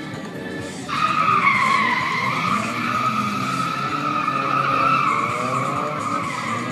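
Drift car's tyres squealing in one long continuous screech that starts suddenly about a second in. The engine revs rise and fall underneath.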